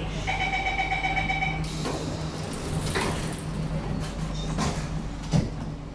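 Door-closing sequence on an SMRT C151B train: a steady warning tone for about a second and a half, then a hiss as the sliding doors and platform screen doors shut, with a few knocks and a sharp thud near the end as they close.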